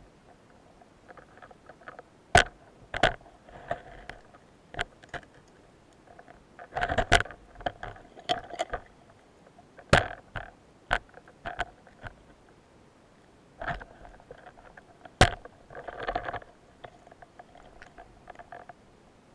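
Underwater handling sounds from a speargun and its shaft: sharp knocks now and then, between short bursts of rushing, scraping noise.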